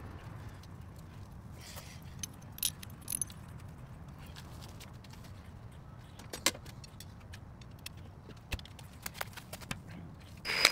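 Scattered light metallic clinks and taps of hand tools and a pry bar against the axle and suspension parts, with a louder clink about six and a half seconds in and a few sharp knocks at the very end.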